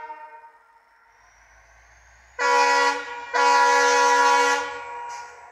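Air horn of an EMD WDP4 diesel-electric locomotive sounding twice, a short blast then a longer one, over the low rumble of its 16-cylinder two-stroke diesel engine.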